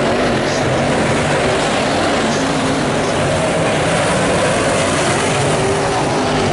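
Dirt late model sedan race cars' V8 engines running hard at racing speed, several engines overlapping, with pitches that waver up and down as the cars come off and on the throttle.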